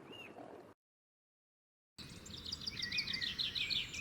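Songbird singing: a fast run of short, repeated high notes over a lower warble, starting about halfway in after a second of dead silence. Faint chirps come just before the silence.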